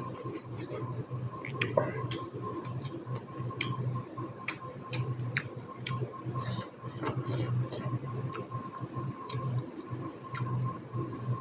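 Close-miked eating: chewing, with scattered wet clicks and mouth smacks, over a steady low hum.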